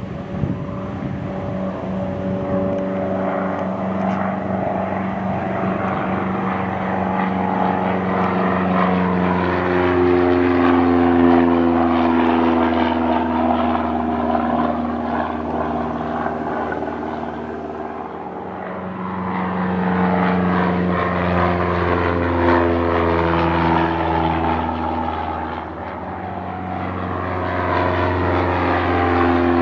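Engine and propeller of a civilian propeller airplane running with a steady droning hum, getting louder and softer twice as it moves.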